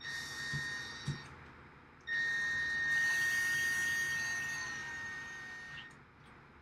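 Cordless drill/driver running in two bursts, a short one and then a longer one of about four seconds, with a steady high motor whine that slowly fades toward the end, driving screws into the rack rails.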